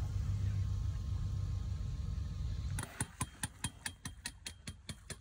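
Steady low rumble of a sailboat under way through the water. About three seconds in it gives way to a rapid, even clicking, about five clicks a second.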